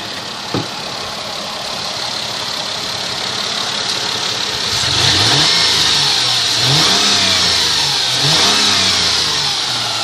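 2002 Mercedes ML320's V6 engine idling, then revved up and down about three times from around halfway, with a high whine from under the vehicle that grows with the revs. The cause of the whine is unknown.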